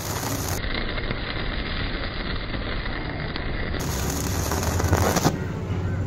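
Stick arc welding on steel: the electrode's arc crackles steadily as the weld is laid, with a louder spike about five seconds in.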